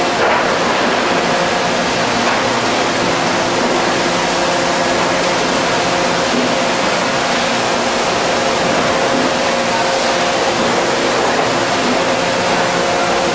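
Factory machinery of a thermoforming line running: a loud, steady rush of noise with a constant hum under it.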